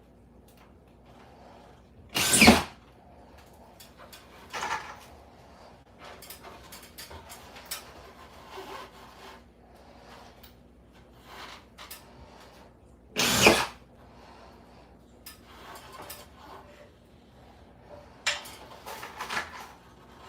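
Power drill running in two short bursts of about half a second each, roughly eleven seconds apart, with quieter knocks and brief tool sounds between them and a cluster of short bursts near the end.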